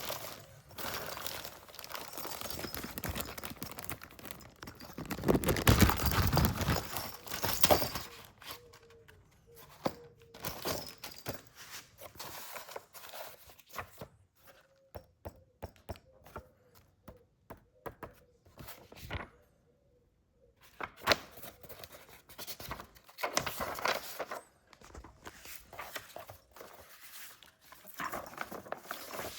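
Packaging being handled: tearing and crinkling of wrapping with scattered knocks and thunks, busiest for a few seconds about five seconds in.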